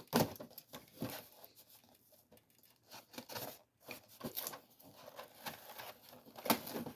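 Action figure's retail packaging being opened by hand: irregular tearing, crinkling and small clicks. A sharper rip comes just after the start and another near the end.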